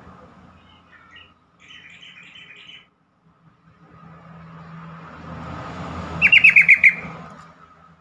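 Yellow-vented bulbul (trucukan) calling: a short chatter about two seconds in, then a loud quick string of about seven sharp notes just after six seconds. A low rumble swells underneath in the second half.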